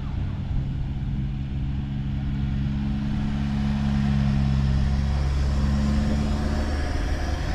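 Four-wheel-drive engines running at low speed as vehicles drive along the beach sand: a steady low engine hum that shifts slightly in pitch about five seconds in.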